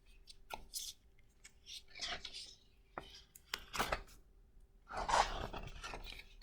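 Picture book being handled and opened: several soft paper rustles and light taps, with a longer rustle about five seconds in.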